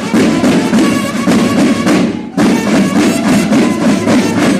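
Mexican banda de guerra playing a march: snare drums rattling in close strokes under bugles holding sustained notes, with a short break just past two seconds in before the band comes back in.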